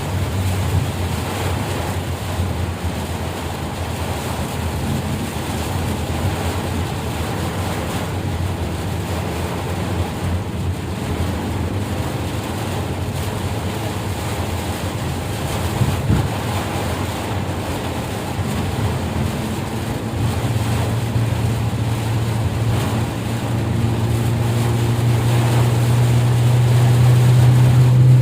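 A vehicle engine runs steadily under a constant rushing noise. Its low hum grows louder over the last several seconds.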